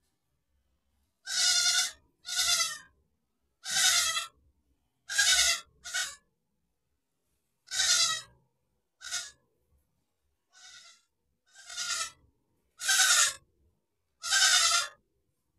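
Goat bleating over and over: about eleven short, wavering bleats with gaps between them, a few of them fainter.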